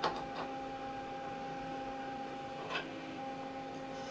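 Machine vise on a CNC mill being cranked by hand to clamp a steel ring: a few light metallic clicks from the vise handle and screw, about three in all, the first at the very start and one near three seconds in, over a steady electrical hum.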